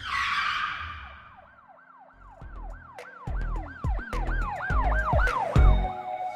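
Intro sound effect: a whoosh hit, then a siren-like wail rising and falling in quick arcs, about three a second, over deep bass hits that grow louder.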